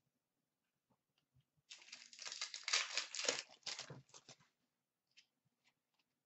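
Plastic wrapper of a trading-card pack crinkling and tearing as it is ripped open, a dense crackle of about three seconds, followed by a few faint clicks of cards being handled.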